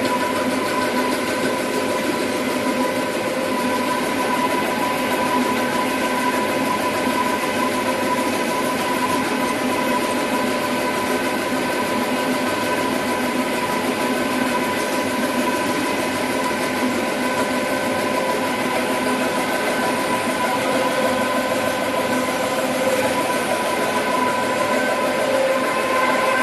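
Dry offset plastic cup printing machine running steadily: a constant mechanical din with a steady hum of several tones, unchanging throughout.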